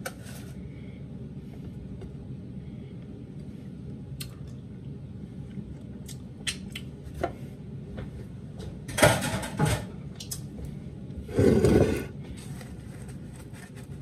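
Kitchen handling sounds of dishes and utensils: a few light clicks and knocks, then two louder, longer scuffs, one about nine seconds in and one about eleven and a half seconds in.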